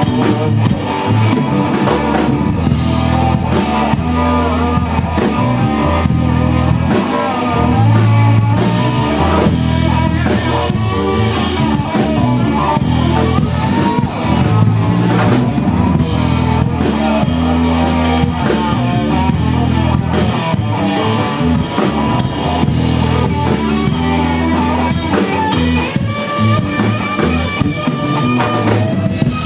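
Live rock trio playing: electric guitar lines with bending notes over bass guitar and a drum kit.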